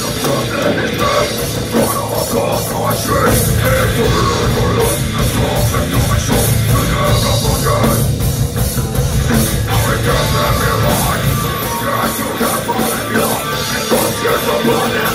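A death metal band playing live and loud: distorted electric guitars and bass over a drum kit, heard from the audience floor. The heavy low end eases about eleven seconds in.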